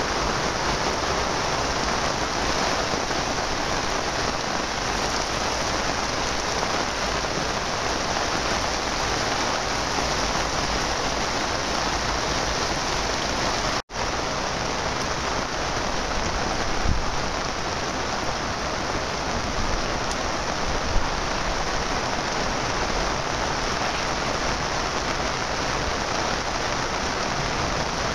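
Heavy rain pouring down in a dense, steady hiss, with a momentary dropout about halfway through where the recording cuts.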